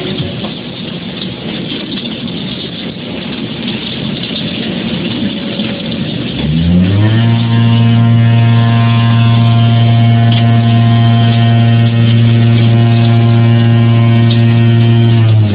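Concrete curbstone block-making machine running: a mixed mechanical clatter, then about six and a half seconds in a deep, steady, loud hum that comes up to speed in under a second, holds for about nine seconds and winds down near the end, typical of the machine's vibration motors compacting the mould.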